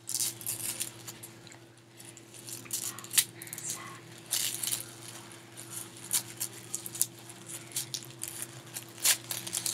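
Plastic toy blind-bag packaging crinkling and rustling as it is handled and torn open by hand, in many short, sharp crackles.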